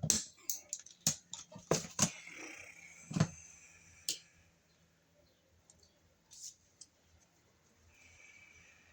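Wire cutters snipping the white neutral house wires to the same length, with the tool and wires being handled: a quick series of sharp clicks and snips over the first four seconds, then only faint handling sounds.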